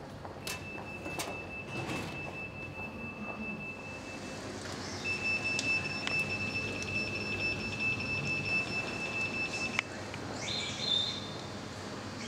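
High-pitched electronic tone from airport security screening equipment, sounding steadily for about three seconds, then again for about five seconds, then once briefly at a higher pitch near the end, as the metal mobility scooter is wheeled through the metal detector gate.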